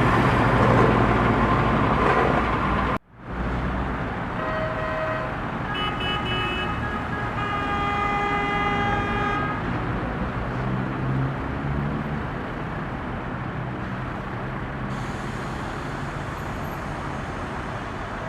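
Road traffic in a jam, engines and tyre noise, with car horns honking: a few short blasts, then one held for about two seconds. The traffic noise cuts out for an instant about three seconds in.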